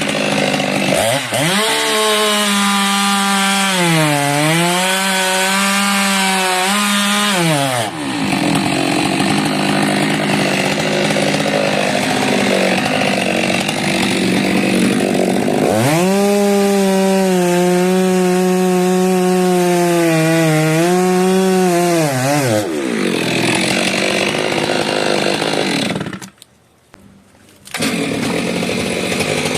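Stihl two-stroke chainsaw cutting through a frangipani trunk, its engine held at high revs with the pitch dipping and recovering as it works. Rougher stretches come between steadier runs, and about three quarters of the way through it drops away briefly before running again.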